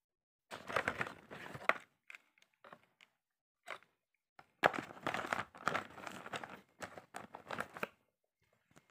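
Rustling and scraping of cardboard packaging and a coiled power cord being handled, in two longer stretches with a few short knocks and gaps of silence between.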